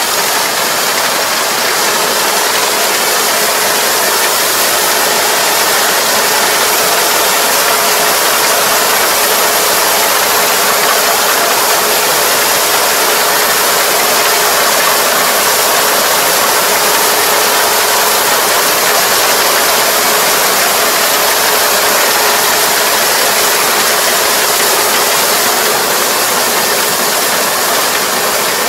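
Kubota ER470 four-row combine harvester running steadily, its engine and machinery giving a loud, even noise with a faint steady hum.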